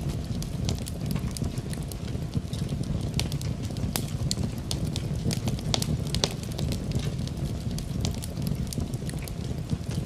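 Fireplace fire crackling, with frequent sharp pops and snaps over a steady low rumble of the flames.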